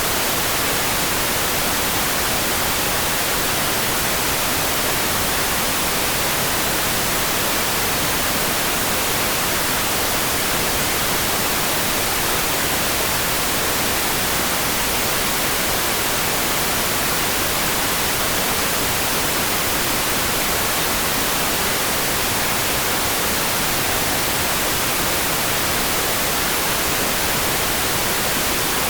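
Constant, even hiss, brightest in the high end, with no single drops, gusts or changes in level.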